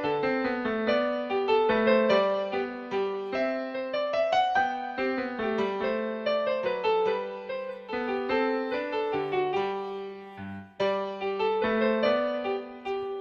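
Background piano music: a lively melody of quick notes over a steady accompaniment, with a short pause about ten and a half seconds in.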